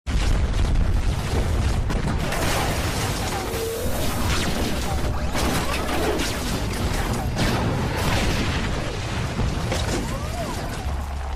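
Sound track of a CGI battle cinematic: booms, crashes and metallic impacts over dramatic music. It starts suddenly out of silence and stays loud, with a heavy low rumble throughout.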